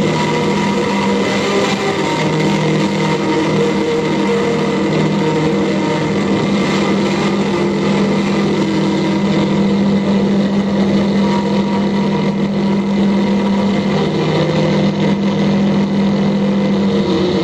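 Loud, unbroken noise-music drone from amplified violin and electronics: steady low held tones under a dense wash of hiss.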